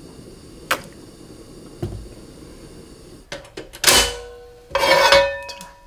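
A portable gas stove is switched off: a low burner hum stops about three seconds in, with a few knob clicks. Then a stainless-steel frying pan knocks and scrapes against the burner grate twice, the second time ringing with a metallic tone.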